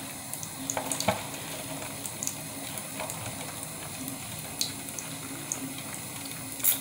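Small splashes and trickles of water as hands wash a hamster in a shallow bowl of water: a few light splashes and a louder one near the end, over a steady hiss.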